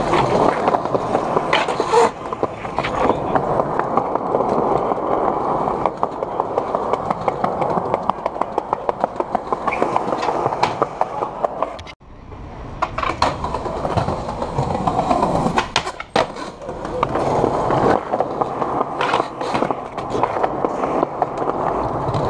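Skateboard wheels rolling on a concrete sidewalk, with a steady run of sharp clicks as they cross the seams between slabs. The rolling drops out for a moment about halfway through, then picks up again.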